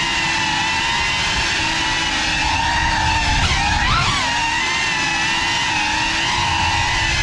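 Whine of a GEPRC Cinelog35 cinewhoop quadcopter's brushless motors and ducted propellers in flight, steady with small wobbles in pitch, swooping up and back down about halfway through as the throttle changes during a fast turn.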